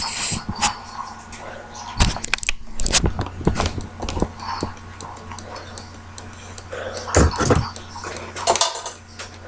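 Scattered clicks and knocks of things being handled, in clusters, over a steady low hum.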